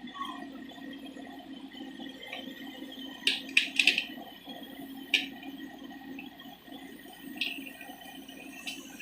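XCMG XE80C excavator's diesel engine running steadily, with sharp metallic clanks: a quick cluster about three seconds in and single clanks later on.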